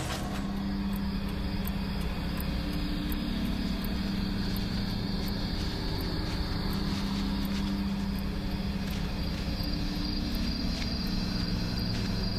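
A steady low hum with faint, evenly spaced ticks, about two a second.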